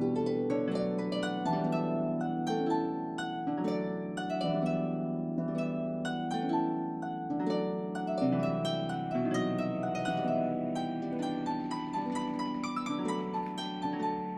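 Background music played on plucked strings: a steady run of quick ringing notes over held lower notes.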